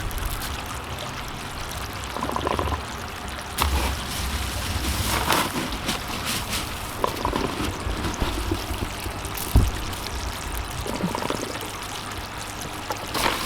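Water trickling and running in an aquaponic grow bed, steady throughout, with scattered short knocks and rustles as the bed's roots and media are handled; one sharper knock comes near two-thirds of the way in.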